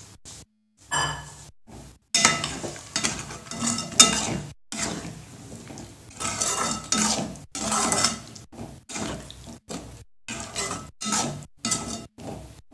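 A perforated steel skimmer ladle scraping and clinking against an aluminium pot as it stirs a watery chicken gravy, in repeated uneven strokes. The sound drops out to dead silence several times, briefly each time.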